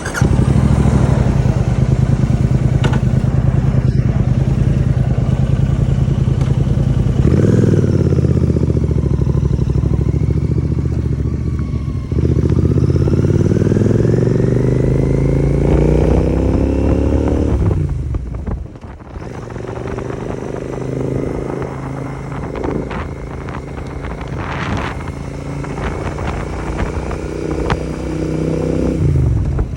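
A 650 twin motorcycle with an AEW 101 aftermarket exhaust, loud and running under way. The engine note climbs in pitch as it accelerates, and the pull breaks at about 7 and 12 seconds in, as at gear changes. About two-thirds through the throttle closes and the sound drops briefly, then it runs on steadier and a little quieter.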